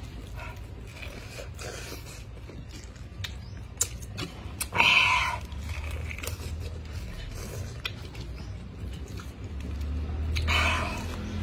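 Close-miked biting and chewing of fresh pineapple eaten straight off the whole fruit: scattered crisp crunches, with two louder, wetter bursts about five seconds in and near the end.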